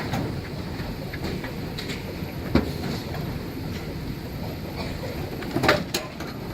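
Shopping cart rolling over a store floor with a steady low rattle, and sharp knocks about two and a half seconds in and near the end.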